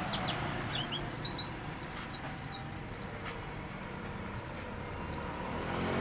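White-eye (pleci) singing a quick string of thin, high chirps, each sweeping sharply up or down, for about the first three seconds, then only a few scattered notes. It is a wild-caught bird that has begun to sing.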